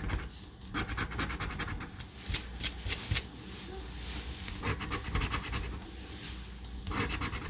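The coating of a scratch-off lottery ticket being scratched away in quick, irregular scraping strokes, in short spurts.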